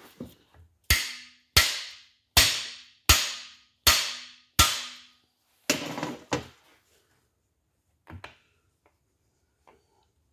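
Hammer blows on the bar of a cam bearing driver, driving a cam bearing into the cam tunnel of a Pontiac 400 block. There are six sharp, ringing strikes a little under a second apart, then two more blows and a few light taps near the end.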